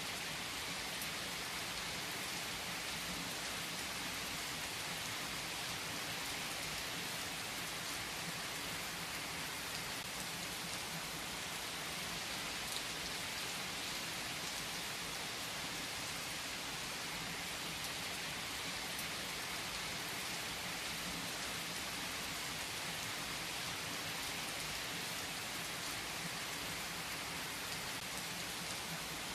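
Steady rain falling on a surface, with faint scattered drop ticks over an even hiss.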